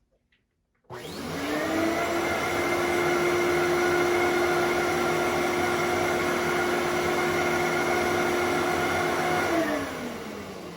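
Fantom Thunder upright cyclonic vacuum cleaner switched on about a second in: the motor whines up quickly to a steady pitch and runs steadily, then is switched off near the end and winds down with a falling whine.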